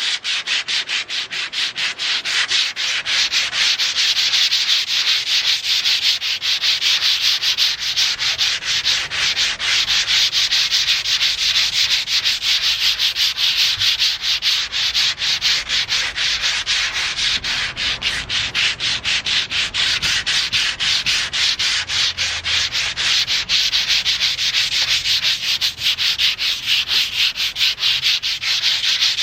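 Sandpaper rubbing over a car's painted steel body panel, hand-sanding the paint down in rapid, steady back-and-forth strokes with a dry, gritty hiss.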